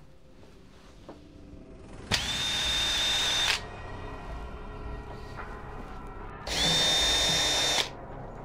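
Cordless drill with a twist bit, run twice in short bursts of about a second and a half, each spinning up to a steady high whine and then stopping.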